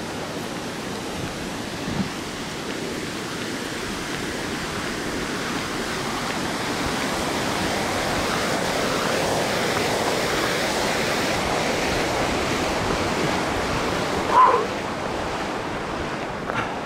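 Rushing water from a small river waterfall, a steady rush that swells in the middle and then eases as the waterfall is passed. About fourteen seconds in, a single short animal call stands out over the water.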